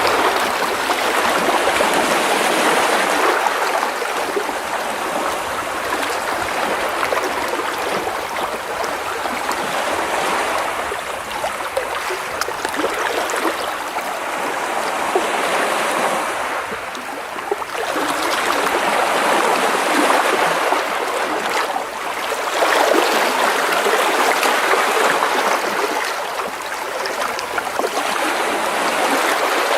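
Small sea waves splashing and washing over rocks close by, water sloshing and trickling in swells that rise and ease every few seconds.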